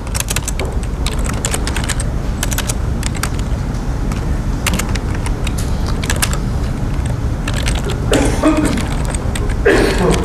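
Typing on a computer keyboard: irregular key clicks in short runs over a steady low hum.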